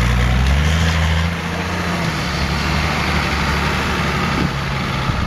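Modified off-road 4x4's engine pulling hard under load, loudest in the first second or so, then easing to a steadier, lower drone as it drives on across loose sand.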